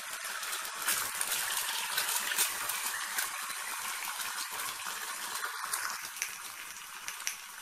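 An egg frying in hot oil in a pan, just after going in: a steady sizzle with many small crackling pops, easing slightly near the end.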